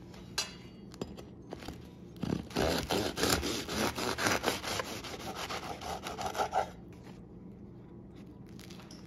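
Knife sawing back and forth through the crisp crust of a baked baguette on a wooden cutting board, a quick rasping run of strokes lasting about four seconds from a couple of seconds in. A single light tap comes shortly before.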